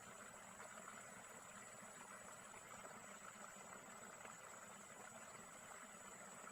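Near silence: faint steady background hiss with a thin, steady high-pitched whine throughout.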